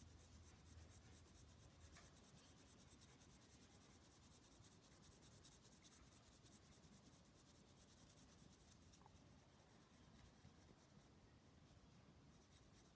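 Faint, rapid scratching of a graphite pencil on paper, short strokes laid down for shading.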